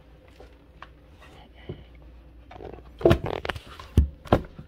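A few faint ticks, then from about three seconds in a quick series of sharp clicks and knocks, some with a dull thump, from things being handled and switched on.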